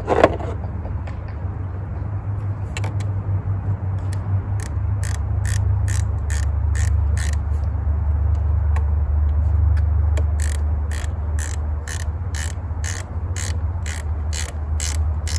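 Ratchet wrench clicking in steady runs of about three clicks a second as a battery terminal clamp nut is worked, in two runs with a pause between, the second starting about ten seconds in. A low hum runs underneath, and there is a single thump at the start.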